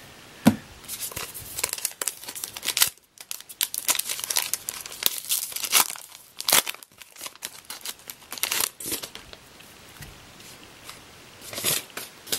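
A trading-card pack's wrapper being torn open and crinkled by hand, in irregular bursts of crackling.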